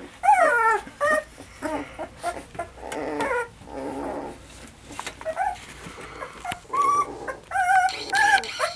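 Young Vizsla puppies whimpering and whining: many short calls, one after another, that slide up and down in pitch.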